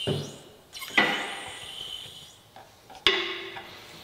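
Sharp metal clanks and knocks with a short ring, from the heavy milling machine head and its crane being handled on a steel workbench. The two loudest hits come about a second and about three seconds in, with scraping between them.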